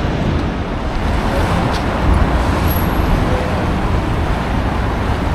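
Steady outdoor noise with a heavy low rumble: wind buffeting the microphone over passing road traffic.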